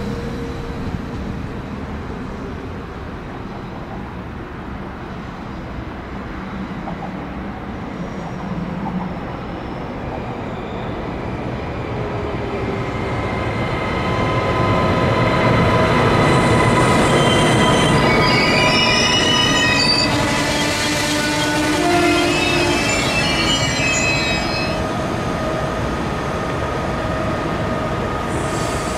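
A train moving along the tracks, growing louder about halfway through, with high, wavering wheel squeal for several seconds in the second half.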